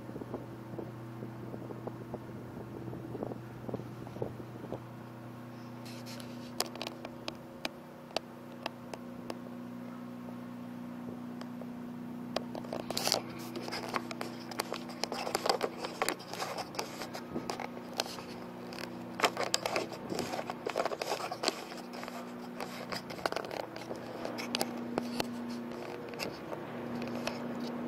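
Steady low engine hum from the high-speed catamaran ferry Ocean Arrow as it comes in to its berth. Many sharp clicks and scraping crackles join it about six seconds in and are thickest in the middle.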